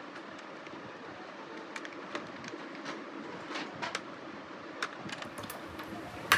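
Scattered faint clicks and taps over a steady low hum, with one sharper click near the end.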